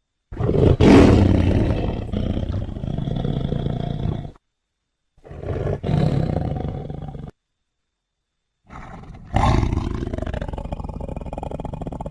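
Big-cat roars made up as a sound effect for a sabre-toothed cat (Smilodon): three deep roars with dead silence between them, the third still going at the end.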